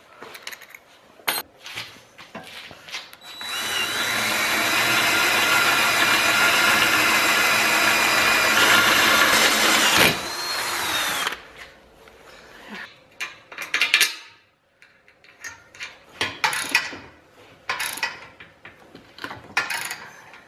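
Cordless drill boring a small pilot hole through steel angle iron: it starts about three seconds in, runs steadily with a high whine for about eight seconds, then winds down. After that come scattered light metal clicks and clinks as a bolt is fitted and tightened with wrenches.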